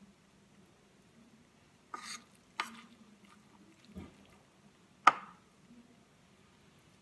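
A spoon knocking and scraping against a bowl and a plastic cutting board while spinach-corn filling is scooped and spread on bread slices: a short scrape about two seconds in, then a few sharp clicks, the loudest about five seconds in.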